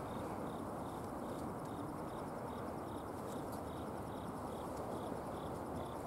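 A train on the Ou Main Line running along the track, heard from its front cab as a steady rumbling noise. A faint high-pitched pulse repeats about two or three times a second throughout.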